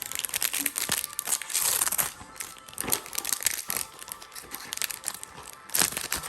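Foil booster-pack wrapper being torn open and crinkled by hand: a run of crackly rustling, louder about a second and a half in, around three seconds, and again near the end.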